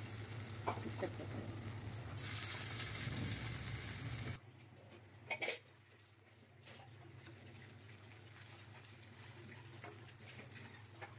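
Oil sizzling as ivy gourd (telakucha) leaf fritter batter fries in a nonstick frying pan, a steady hiss with a few light clicks. About four seconds in it cuts off suddenly, leaving only a faint hiss.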